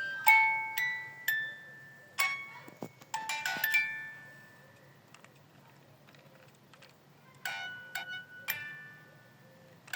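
Bright chime-like musical notes, each struck sharply and ringing out briefly, played in quick clusters. The notes stop about four seconds in and start again near the end.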